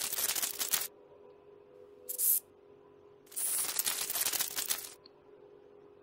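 Three bursts of dry, crackling rustle, a sound effect: one at the start lasting under a second, a short one about two seconds in, and a longer one from about three and a half to five seconds. A faint steady hum runs underneath.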